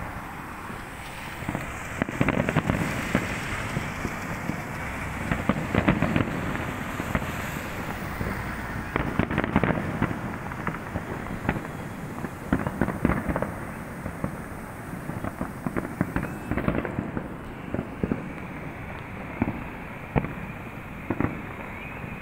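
Fireworks display: rapid, irregular bangs and crackles coming in dense volleys, thinning to scattered pops in the last few seconds.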